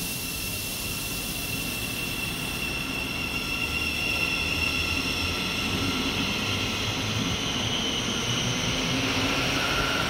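Great Northern Class 717 electric multiple unit moving through the station, its traction motors giving a high electric whine of several steady tones over a low rumble of wheels on rail, growing gradually louder.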